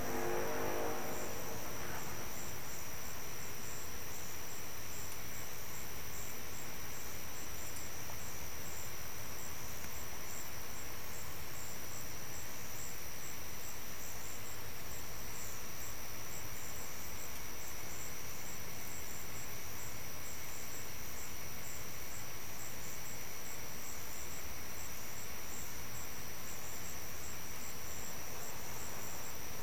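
Night insects, crickets, chirping steadily outdoors as a constant high tone with a fast pulsing trill above it. In the first two seconds the tail of a distant, low, horn-like sound resembling a tuba fades out; its source is unknown, and the recorder guesses it could be a train with a wonky horn.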